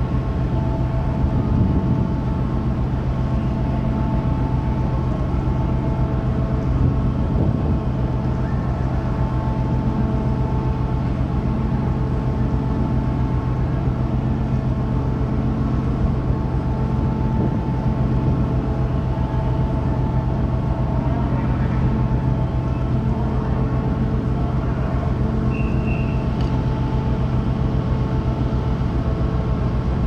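Large car ferry's diesel machinery running, heard on its open deck: a steady low hum with several steady tones above it.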